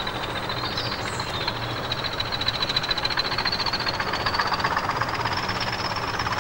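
Class 20 diesel locomotive approaching under power. Its English Electric engine is running, and the turbocharger whistle rises slowly in pitch as the sound grows louder.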